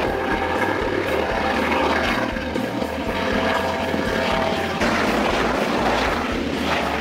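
Helicopter flying low overhead: the steady beat of the main rotor with a constant turbine whine, growing a little louder and noisier about five seconds in as it passes over.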